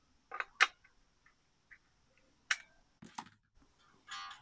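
A few scattered sharp clicks and ticks from a small screwdriver working the bridge height adjustment of an Epiphone Les Paul Special electric guitar, setting the string height. The loudest click comes about half a second in.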